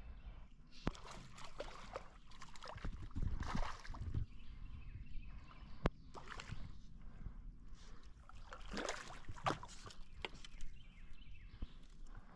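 Water splashing and sloshing as a hooked smallmouth bass is fought at the surface beside a canoe, with scattered knocks and clicks. The splashing comes in two louder spells, a few seconds in and again about three quarters through.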